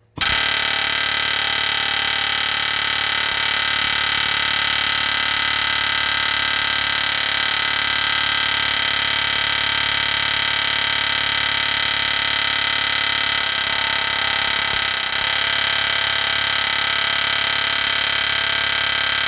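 Pneumatic air hammer with a punch bit hammering rapidly and without pause on a steel truck frame rivet to drive it out, a loud, steady buzz that starts abruptly. The rivet is stubborn and does not give.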